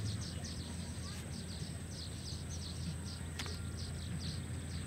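Small birds chirping rapidly and repeatedly, several short high chirps a second, over a steady low hum and a thin steady high-pitched tone, with one sharp click a little past halfway.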